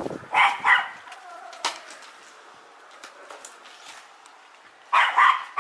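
A dog barking, a couple of short barks near the start and a few more near the end, with faint rustling and clicks of cardboard packaging being handled in between.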